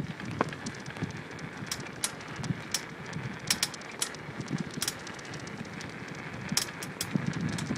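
Engineless homemade mini bike frame rolling over bumpy ground, rattling with many irregular sharp clicks and knocks.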